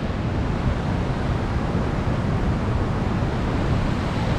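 Steady rushing noise of heavy water flow at a dam during the monsoon.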